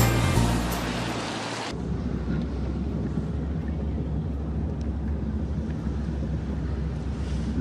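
Music fades out in the first couple of seconds. Then comes the steady low rumble of a car driving, heard from inside the cabin.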